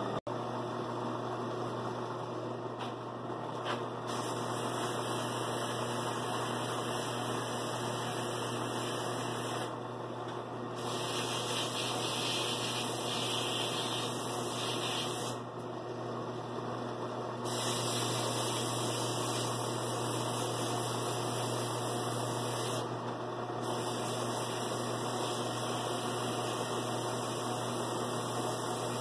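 Ammco bench brake lathe running with a brake rotor spinning on its arbor, a steady motor hum under a bright hiss from sandpaper held against the spinning rotor faces to clear the metal shavings left by the cut. The hiss drops away briefly a few times.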